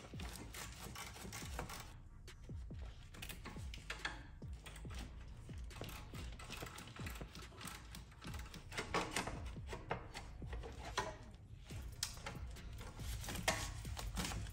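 Hand ratchet wrench clicking in quick runs of sharp clicks as bolts on the engine cover are loosened.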